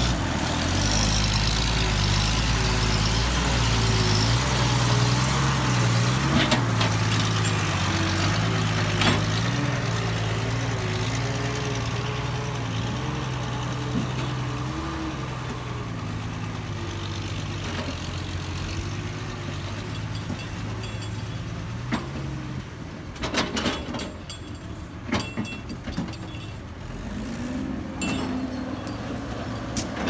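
Heavy diesel dump truck engine running steadily, then fading out after about twenty seconds as the loaded truck drives away. Several sharp knocks and clanks come between about 23 and 27 seconds in, and an engine revs up near the end.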